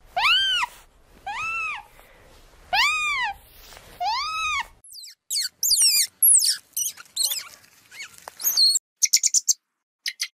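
Animal calls: four evenly spaced calls, each rising then falling in pitch, then a quick run of high, sweeping chirps and trills like bird song that stops shortly before the end.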